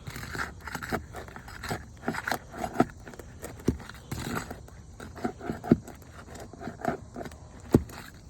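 A roofing tool scraping and prying at brittle asphalt shingles, making irregular crunches, scrapes and sharp clicks as the shingles are unsealed and worked loose.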